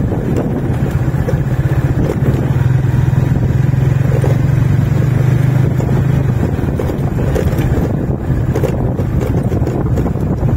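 Motorcycle engine running at a steady pitch while riding, over a constant rush of wind and road noise. The engine note eases off about six seconds in, leaving mostly the rushing noise.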